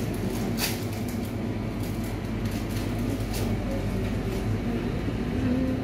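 Steady low background hum with a plastic ice-bar wrapper crinkling and tearing, loudest about half a second in.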